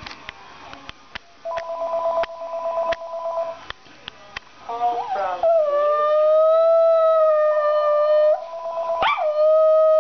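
A Cairn terrier howling in long, steady held notes, the first starting about five seconds in and a second about nine seconds in, set off by a talking phone. Before the howls a few clicks and a steady two-note phone tone sound, and the tone returns briefly under the first howl.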